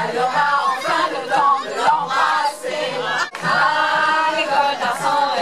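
A group of women's and children's voices singing a song together in French, with a short click and a brief dip about three seconds in.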